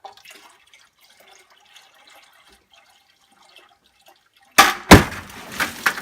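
Water trickling into a plastic ice cream pail, then about four and a half seconds in two loud crashes close together and splashing: the 3D-printed chain holding the water-filled pail snaps and the pail drops.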